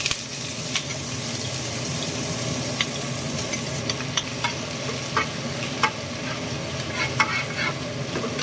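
Chopped onion and garlic sizzling in hot oil in a nonstick wok: a steady hiss with scattered pops and crackles.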